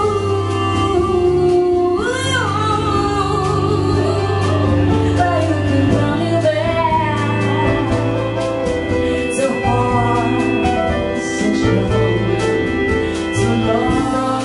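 A woman singing a slow melody with a live jazz trio of keyboards, bass and drums, holding long notes with vibrato over steady bass notes, with cymbals ticking through it.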